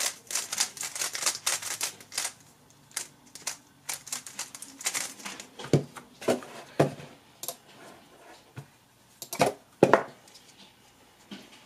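GAN 11 M Duo 3x3 speedcube being turned quickly, a dense run of plastic clicks for about five seconds, followed by a few separate knocks as the cube is set down and handled on the mat.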